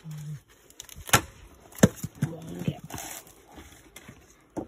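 Sharp cracks and snaps as a sprouted coconut's dry husk and shell are broken apart by hand, three loud snaps spread over a few seconds.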